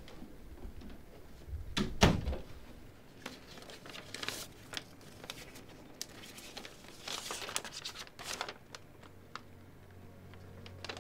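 Paper rustling and crinkling as an envelope is opened and a wad of folded notepad pages is handled, with one dull thump about two seconds in.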